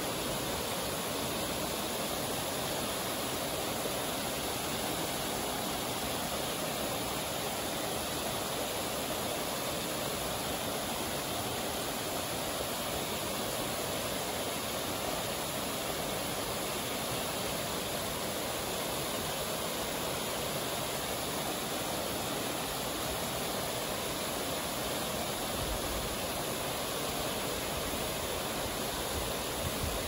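Waterfall and stream rushing steadily over rock ledges, an even wash of water noise, with a faint low rumble coming in near the end.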